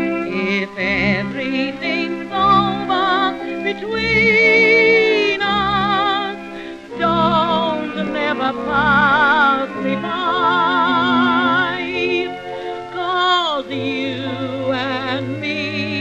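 Music from a 1932 music-hall gramophone record: a melody with wide, fast vibrato, sliding down in pitch about 13 seconds in, over an orchestral accompaniment with a steady, evenly pulsing bass.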